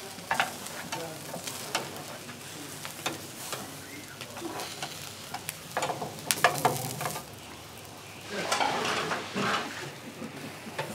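Skewers of lamb kebab sizzling over a charcoal grill, a steady hiss broken by sharp pops and crackles.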